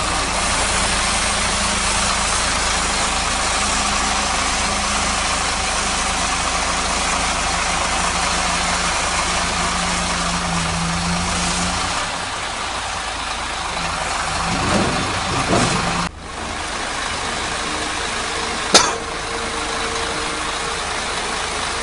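Diesel engine of an Isuzu Giga FVZ self-loader truck running steadily while the truck stands jacked up on its hydraulic outrigger legs with the deck tilted down. The sound changes about twelve seconds in, and a single sharp knock comes near the end.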